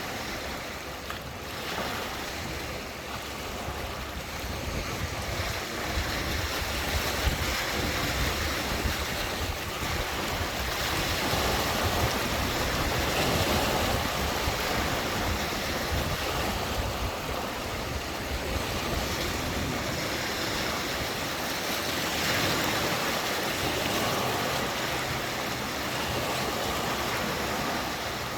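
Lake water washing against the shore in a steady wash of small waves, swelling and easing gently in loudness.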